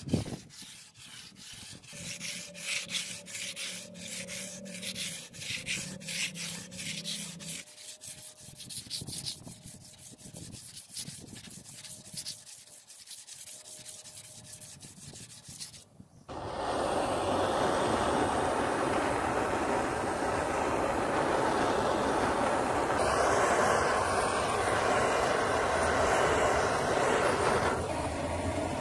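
Rhythmic abrasive rubbing strokes on the steel blade, quick and even, with a faint ring from the metal. About sixteen seconds in it cuts to a loud, steady power-tool noise.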